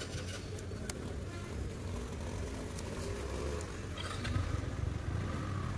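Motorcycle engine running with road and wind noise while riding, picked up by a phone on a helmet chin mount: a steady low hum with faint scattered ticks.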